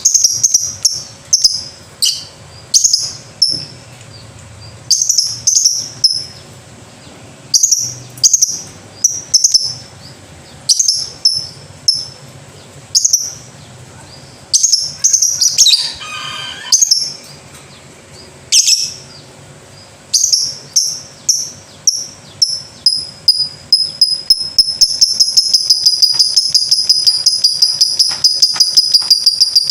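Lovebird calling: shrill short chirps in clusters of two to four, then near the end breaking into a fast, unbroken run of chirps.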